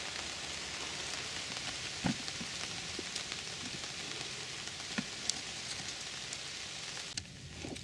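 Steady rain falling, an even hiss with scattered louder drops striking close by. The hiss falls away suddenly less than a second before the end.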